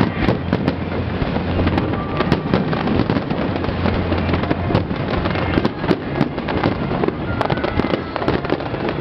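Aerial fireworks bursting over water in a dense, continuous run of bangs and crackles, many shells going off close together.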